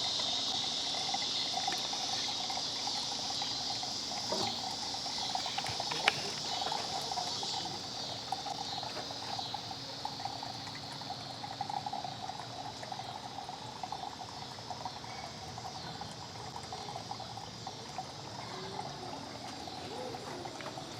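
Steady high-pitched insect chorus, with a second lower trilling band, slowly fading, and a couple of faint clicks about four and six seconds in.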